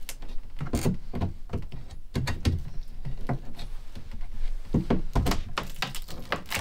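Old fabric-covered trim strip being pulled by hand off the top edge of an RV dinette, tearing loose with irregular cracks, pops and knocks. The clusters are densest about five to six seconds in.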